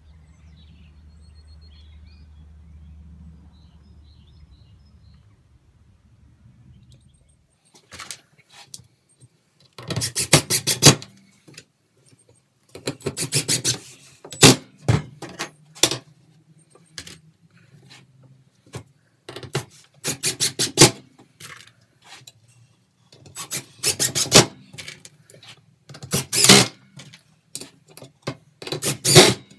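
A faint low outdoor rumble for the first several seconds. Then a cordless driver drives screws through metal corner brackets into pallet-slat wood, in about six short bursts with pauses between.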